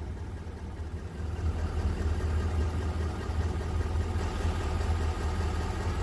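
A 2022 Ford Super Duty pickup's engine idling steadily, heard from inside the cab as a low, even hum.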